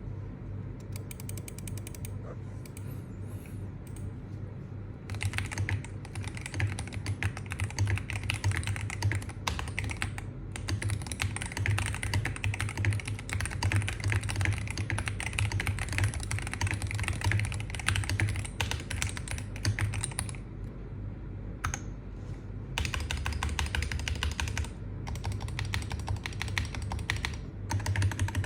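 Typing on a Monsgeek M1W HE SP keyboard with Hall-effect magnetic switches. A few scattered keystrokes give way to fast, continuous key clacking about five seconds in; it thins out for a couple of seconds past the twenty-second mark, then picks up again. A steady low hum runs underneath.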